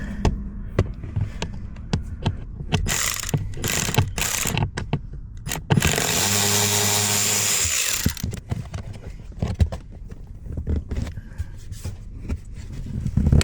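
Tools working on the T20 Torx bolts of a car's plastic trim panel: scattered clicks and rattles of a ratchet and loose hardware, and near the middle a power tool running steadily for about two seconds.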